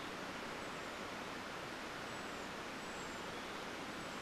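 Steady, even hiss of outdoor background noise, with a few faint, short, high falling chirps now and then.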